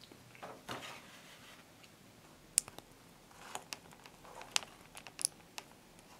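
Faint, scattered small clicks and ticks as crimped wire terminals are pushed by hand into a small plastic connector housing, with a few sharper clicks in the second half.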